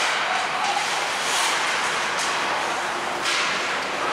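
Ice hockey game on the rink: a steady hiss of skates on the ice with a few sharp scrapes of blades cutting and stopping.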